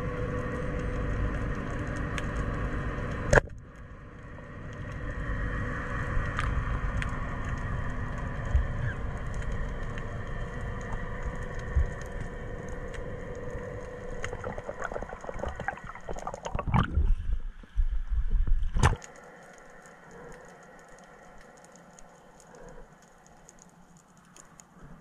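Underwater noise picked up by a diver's camera: a low rumble of water and movement with a faint steady hum and scattered clicks. A louder, rougher stretch comes about two-thirds through, then the sound drops much quieter.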